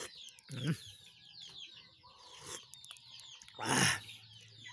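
Chickens clucking and peeping: a steady stream of short, high, falling peeps, with a lower cluck about half a second in. A short loud burst of noise comes just before four seconds and is the loudest sound.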